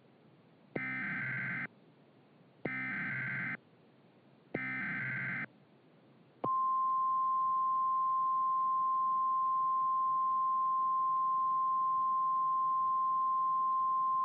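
Emergency Alert System activation: three identical buzzy SAME header data bursts, each about a second long and a second apart. About six and a half seconds in they give way to a loud, steady single-pitched 1050 Hz weather-radio alert tone that holds on.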